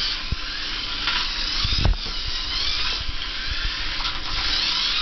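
Tiny RC cars' small electric motors and gears whining at high pitch, the whine rising and falling as the cars speed up and turn. A short knock comes about two seconds in.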